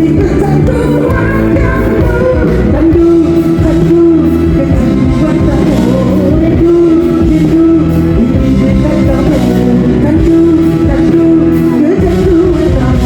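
A man singing a song in long, wavering held notes over instrumental accompaniment.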